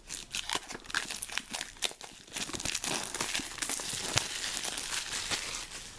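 Retail packaging of a pair of in-ear headphones being opened by hand: a run of crinkling, rustling and tearing, busiest in the middle.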